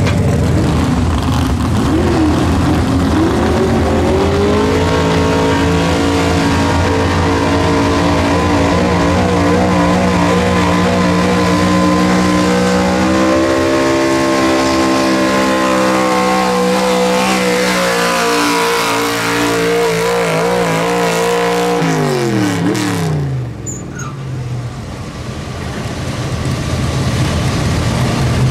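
A gas four-wheel-drive pulling truck's engine revs up from idle and is held at high revs for about eighteen seconds, its pitch wavering as it works under the load of the pull. Near the end the revs fall away steeply and the engine settles back to a low idle.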